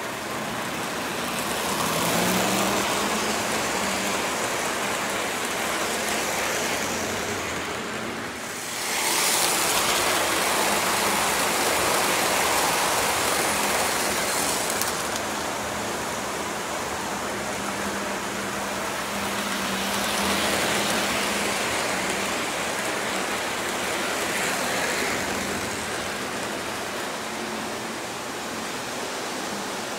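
Lionel O gauge model train running on its track: a steady running noise of wheels on rail with a low motor hum, loudest as the cars pass close about nine seconds in, then slowly easing off.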